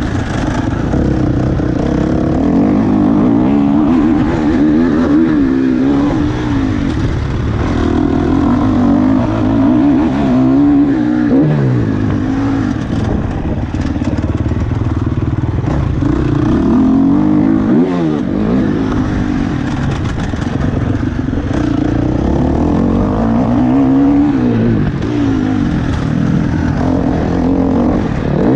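KTM 350 SX-F single-cylinder four-stroke motocross engine under riding load, its revs repeatedly climbing and dropping as the rider works the throttle and gears, with sharp drops in revs about 11 and 18 seconds in.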